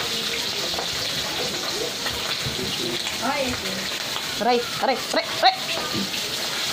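Danggit (rabbitfish) frying in hot oil in a pan: a steady sizzle. A few short, arching vocal calls sound over it about three and five seconds in.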